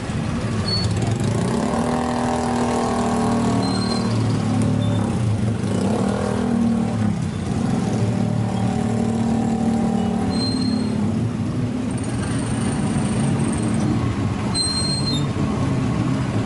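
Motorcycle and tricycle engines idling and creeping along together in slow traffic, a steady low engine hum that shifts in pitch every second or two. A few short, high chirps cut through it now and then.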